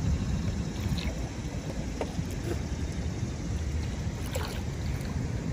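Wind buffeting the microphone as a low, uneven rumble, with a few faint splashes from feet wading in shallow water.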